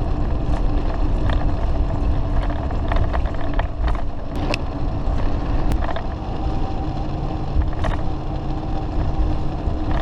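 Class A motorhome driving at road speed: a steady rumble of engine and road noise inside the cab, with a faint steady whine and scattered sharp rattles and knocks.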